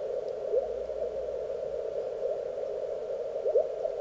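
Elecraft K1 transceiver's receiver audio while tuning across the 20-metre CW band: a steady hiss of band noise, with short whistles of signals gliding up or down in pitch as the dial turns past them, two close together near the end. The noise is low and few stations are heard.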